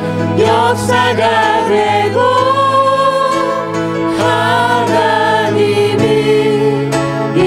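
Church praise team of mixed men's and women's voices singing a worship song together into microphones, with acoustic guitar and sustained low accompaniment underneath. The low part changes note about six seconds in.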